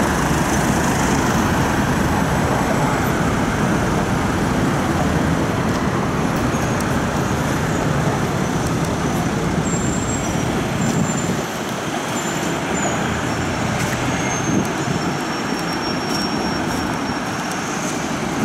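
Busy road traffic: cars and vans passing on a multi-lane city road in a steady wash of engine and tyre noise, the low rumble easing a little about eleven seconds in.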